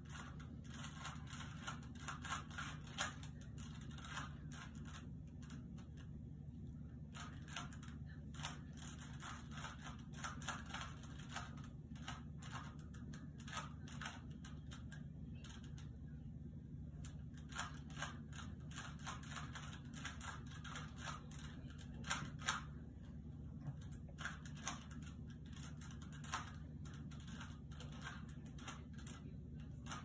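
Plastic 3x3 Rubik's cube being turned fast: quick runs of small clicks as the layers snap round, in irregular bursts with short pauses, over a steady low hum.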